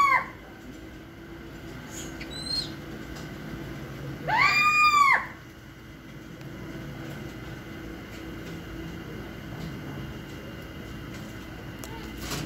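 A caged owl giving one clear, drawn-out call about four seconds in, rising and then falling in pitch over about a second, with a short faint high note about two seconds in.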